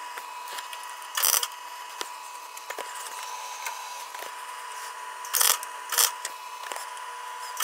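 Electric arc welding on a steel socket: the arc gives a steady crackle and hiss with a faint steady whine. There are louder crackling bursts about a second in and twice more near the end.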